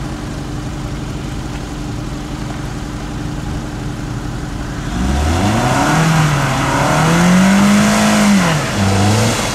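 Toyota RAV4's engine running low and steady, then from about five seconds in revving hard as it tries to climb a hill from a standstill without a run-up. The revs climb, hold high, dip briefly and rise again near the end, with a rushing noise underneath.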